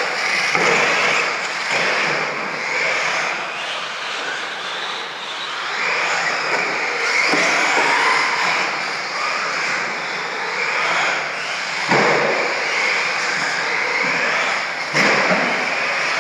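Radio-controlled stadium trucks running laps on a dirt track: a continuous mix of motor whine and tyres on dirt, rising and falling as the trucks pass. Two sharp knocks, about 12 and 15 seconds in.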